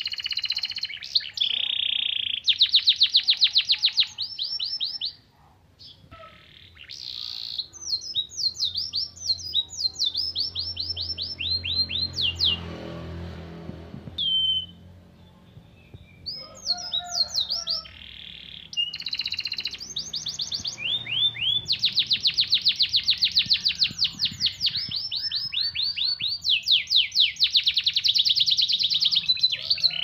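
Domestic canary singing: rapid rattling trills and repeated chirping phrases, broken by short pauses, with long unbroken rolls in the second half. The song carries pleci (white-eye) song material that the canary has picked up.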